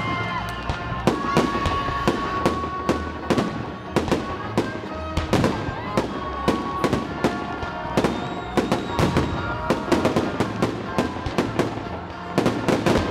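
Fireworks salute: aerial shells bursting in a rapid, irregular string of sharp bangs, several a second, with music playing underneath.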